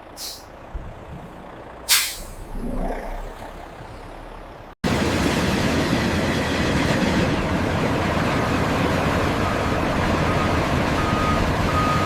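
Heavy truck: a short, sharp air-brake hiss about two seconds in over a low engine rumble, then loud steady engine and road noise with a repeating reversing beeper near the end.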